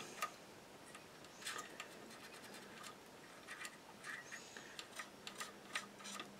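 Faint, irregular scratching and light ticking of a cotton bud rubbing excess weathering wash off the plastic hull of a model tank, with the stroke sounds coming in small clusters.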